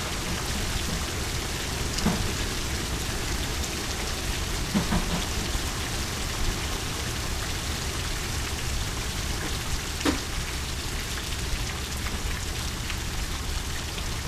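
Steady rain falling in a storm, an even hiss over a low rumble, with a few sharp taps about 2, 5 and 10 seconds in.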